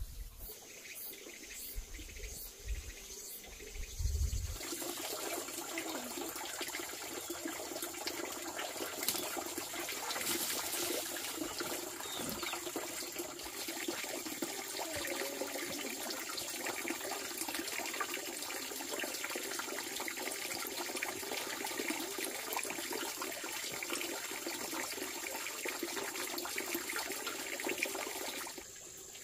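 A few low thumps, then about four seconds in a steady rush of running water starts and carries on unchanged, cutting off just before the end, with a thin steady high tone behind it.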